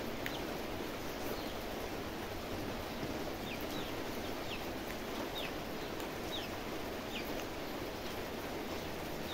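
A small bird chirping over a steady background hiss: a short, high falling note repeated about once a second, starting a few seconds in.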